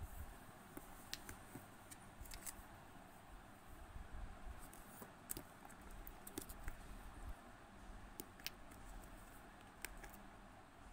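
Faint, irregular clicks and taps of small plastic paint bottles being handled and set into their plastic tray, over a steady low hiss.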